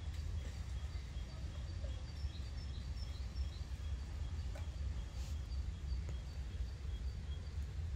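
Small birds chirping, with short high notes repeating many times, over a steady low background rumble.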